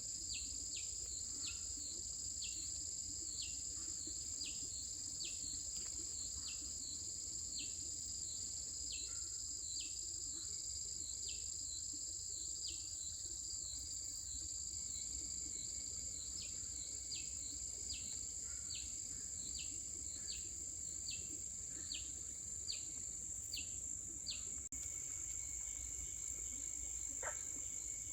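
Insects droning steadily at a high pitch, with a short chirp that slides downward repeated a little over once a second until near the end.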